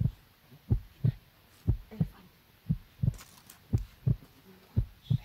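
Footsteps of the person carrying the camera, heard as dull low thumps through the camera body, about two steps a second in an uneven long-short walking rhythm.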